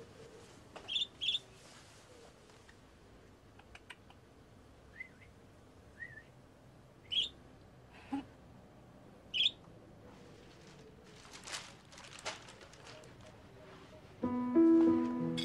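A pet budgerigar giving short, high chirps a few seconds apart, one quick pair early on, over a faint room hush, with a couple of brief rustles about two-thirds through. Music with steady held notes comes in near the end.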